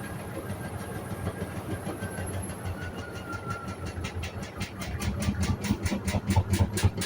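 Hoover Sudslock washing machine running: a steady motor hum with a faint whine, joined about halfway through by a regular beat of about four strokes a second that grows louder.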